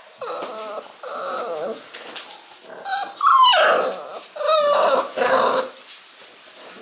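Six-week-old Shar-Pei puppy vocalizing in a run of four whiny, growly yaps, the two loudest about three and four and a half seconds in, each sliding steeply down in pitch.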